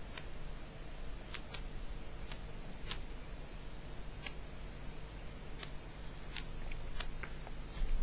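Low steady hum with about a dozen faint, sharp clicks scattered irregularly, coming a little more often near the end.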